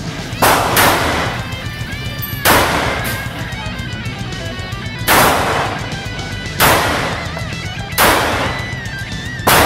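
Seven single shots from a Ruger P90 .45 ACP pistol: two in quick succession about half a second in, then one every one and a half to two and a half seconds. Each shot rings on in the echo of the range's concrete shooting lanes, over guitar music.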